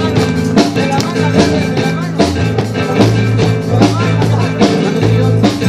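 Live band music with a steady drum beat and bass, playing between the sung lines of a Spanish-language worship song.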